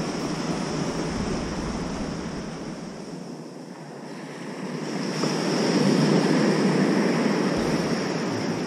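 Ocean surf washing on the shore, dipping and then swelling to its loudest about five seconds in, with wind rumbling on the microphone.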